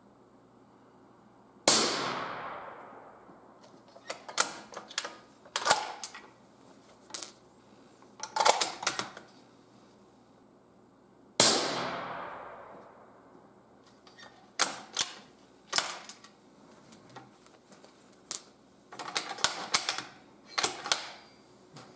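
Two bolt-action rifle shots about ten seconds apart, each ringing off in the room where it is fired. Between and after the shots come runs of sharp clicks from the bolt being worked: lifted, drawn back to eject the spent case, and run forward to chamber the next round.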